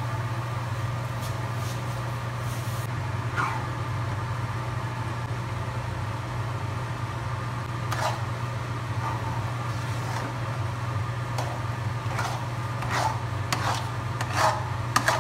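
Metal spatula scraping and knocking against a wok as a thick grated-radish batter is stirred, a few strokes early on and more often in the second half, loudest near the end, over a steady low hum.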